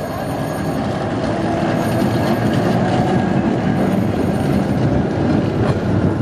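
A vintage electric tram and its open-sided wooden trailer car passing close by, the wheels and motors rumbling on the rails and growing a little louder as the cars go past.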